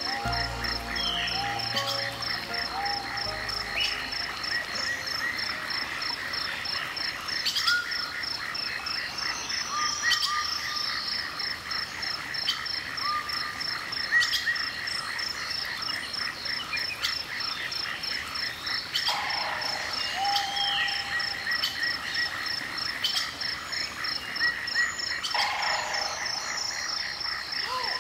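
A chorus of frogs: a steady, rapidly pulsed trill with short rising chirps scattered over it. A few closing notes of music fade out in the first seconds.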